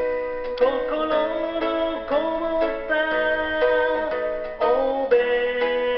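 A song with plucked-string accompaniment and a steady beat, with a sung melody over it.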